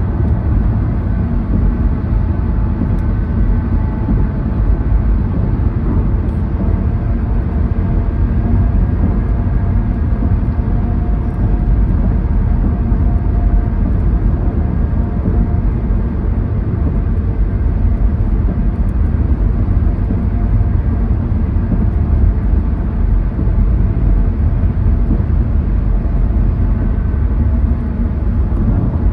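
Steady road and tyre noise with engine drone, heard inside a car's cabin cruising at highway speed; a deep, even rumble dominates throughout.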